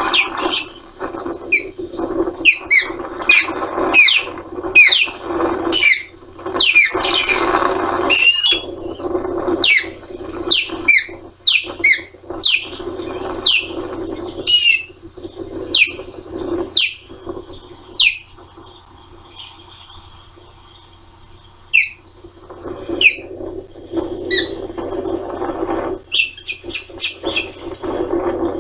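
Osprey calling: a long series of sharp whistled calls, each falling steeply in pitch, coming one after another, with a few seconds' pause about two-thirds through before they start again. A rough rushing noise rises and falls underneath.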